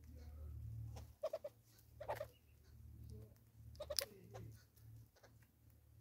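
Southern red-billed hornbill's bill knocking on a wooden stump as it pecks up seed: a quick cluster of three sharp taps about a second in, another near two seconds and the loudest near four seconds, over a low background rumble.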